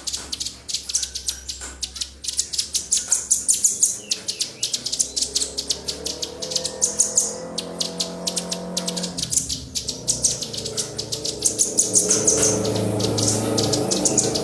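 Small songbirds chirping in fast runs of sharp, high-pitched notes, several a second. A lower steady tone grows underneath in the second half.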